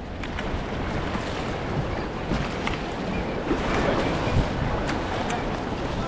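River water rushing and splashing around an inflatable raft as the crew paddles forward, with the scattered splashes of paddle blades dipping into the water.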